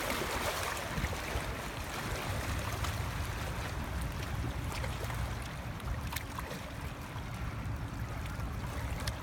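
Steady rush of river water at a rocky bank, with a low rumble under it and a few faint clicks.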